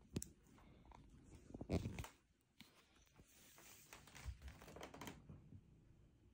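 Faint rustling and small clicks as a dog noses through a fabric snuffle mat hunting for hidden treats. The loudest rustle comes just under two seconds in.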